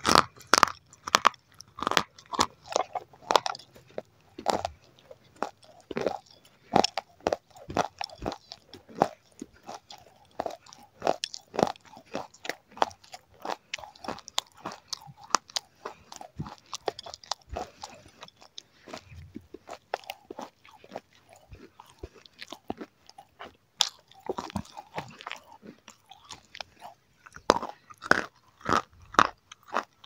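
Close-miked biting and chewing of crisp chicken momos, a steady run of sharp crunches. The crunching is busiest in the first few seconds and again near the end.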